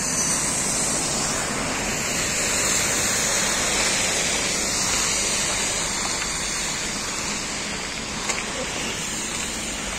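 Steady rushing noise of road traffic, lorries and cars passing on a multi-lane road, a little louder in the middle as a lorry goes by.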